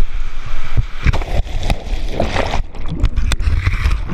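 Whitewater rapids rushing and splashing hard around a rafter being thrown out of an inflatable raft, with irregular heavy splashes. In the second half the water turns muffled and gurgling as the helmet camera goes under.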